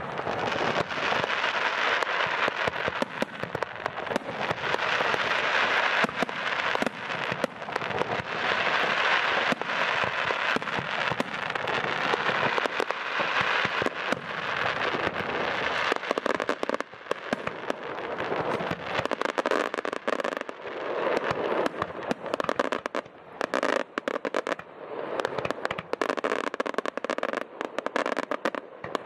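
A fireworks display with dense, rapid crackling and popping. About halfway through it thins into more separate pops and bangs.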